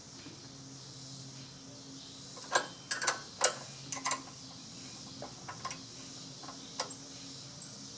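Hand tools clicking and tapping against metal in irregular sharp clicks, bunched about halfway through with a few lighter ones after. The rocker-arm lock nuts on a small four-stroke engine's valves are being snugged down after setting the valve clearance.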